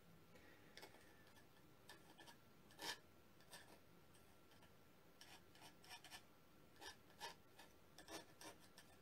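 Faint scraping and rubbing of a palette knife spreading thick paint across canvas, in short irregular strokes, the clearest about three seconds in and a run of them in the last few seconds.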